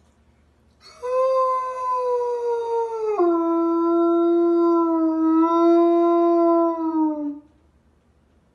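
Large dog howling: one long howl that begins about a second in, drops to a lower pitch about three seconds in, holds there, then slides down and ends.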